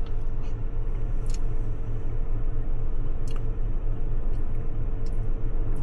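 A person chewing a mouthful of soft cake, with a few small wet mouth clicks, over a steady low rumble.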